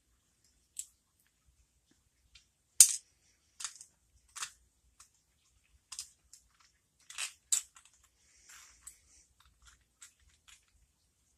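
Irregular small metallic clicks and ticks from a pin-tumbler lock cylinder being taken apart: pins and springs being pushed out and handled, with the loudest click a little under three seconds in and a brief scraping about two-thirds of the way through.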